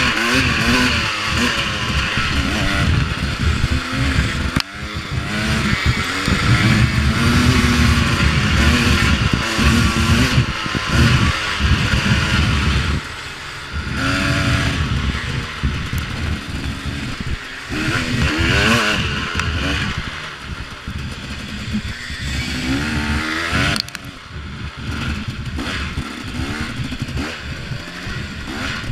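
A 2014 KTM 250 XC-W two-stroke dirt bike engine being ridden on a trail, its revs rising and falling with the throttle. It drops off briefly a few times before picking up again.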